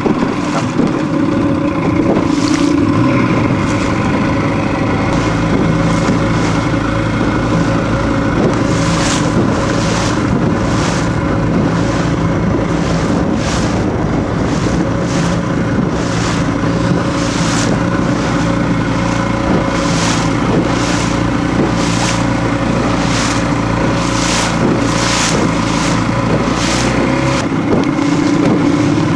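Motorboat engine running steadily under way, with a regular rushing sound about once a second from about nine seconds in.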